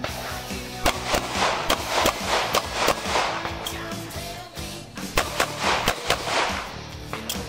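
A run of handgun shots fired in quick succession, a dozen or so, during a USPSA practical-shooting stage, heard over steady background music.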